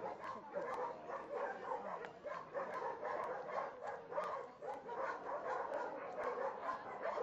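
Dogs at a shelter barking and yapping continuously, many calls overlapping into one steady din.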